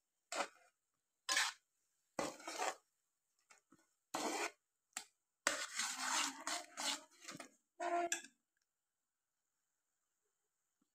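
Slotted metal spoon scraping and clattering against a metal pan in short, uneven strokes while stirring ground peanuts into hot sugar syrup and ghee. The strokes stop about eight seconds in.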